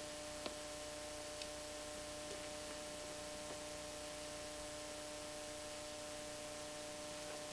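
Low steady hiss with a constant electrical hum underneath, and a few faint ticks in the first second and a half.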